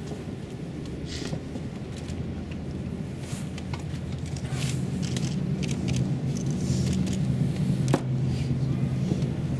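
Open-air ambience of a large crowd standing in silence on a paved square: a low steady rumble with faint murmur and scattered small clicks and shuffles.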